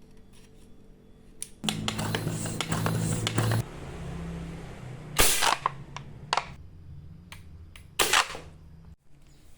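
Handmade airgun firing two sharp shots about three seconds apart. Before them comes a couple of seconds of clattering mechanical noise with a low hum.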